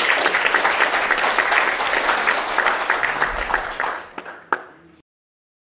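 Audience applauding: dense clapping from many hands that thins out after about four seconds, with one last clap, then cuts off abruptly.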